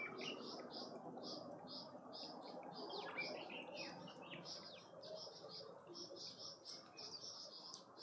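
Small birds chirping around a garden seed feeder, over a high, even pulsing call repeated about three times a second, with a few quick sliding chirps about three seconds in.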